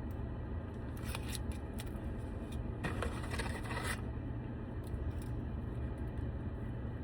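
Plastic dipping-sauce cup and food packaging being handled and opened: a few short crinkles and clicks, then a longer scrape about three seconds in, over a steady low hum.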